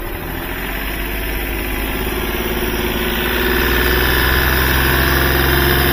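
Hyundai Xcent's common-rail diesel engine running, revved up a little about two to three seconds in and held at the raised speed. No tak-tak knock is heard on the rev, and the injector back-leak returns were judged fine at the time.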